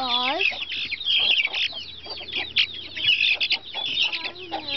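A flock of young, half-grown chickens peeping and cheeping over one another in a continuous high chatter, with a couple of lower, gliding calls at the start and near the end.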